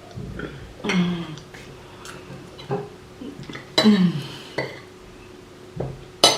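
Cutlery and dishes clinking at a meal, with a few short voice sounds in between and a sharp clink near the end.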